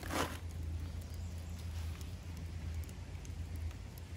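A newly lit wood fire in a steel fire pit giving faint crackles and pops, with a short scraping knock at the very start as a stick is set on the pile. A steady low rumble of wind on the microphone runs underneath.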